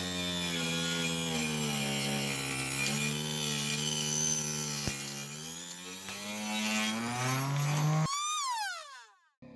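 Mini table saw's twin 775 DC motors spinning a 4-inch circular saw blade, a steady whine whose pitch sags and recovers twice as the blade works through wood. About eight seconds in there is a click, and the whine falls quickly in pitch and fades as the motors are switched off and the blade spins down.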